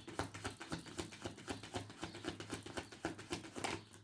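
A deck of tarot cards being shuffled by hand: a quick, continuous flutter of card edges slapping and sliding against each other, which stops just after the end.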